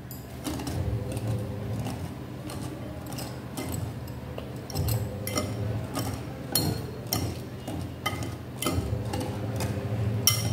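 Wire whisk clinking and tapping against a glass mixing bowl in irregular strokes as a banana is mashed into the wet batter, over a steady low hum.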